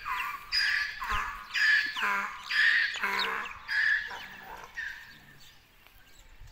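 Donkey braying: a run of harsh, squeaky calls about one a second, mixing high-pitched and lower parts, that fades out about two-thirds of the way through.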